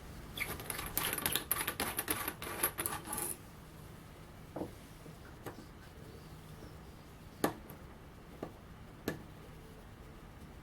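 Small metal parts of a mini arbor press clicking and rattling as it is handled and taken apart: nearly three seconds of quick, busy clatter, then a handful of separate sharp clicks.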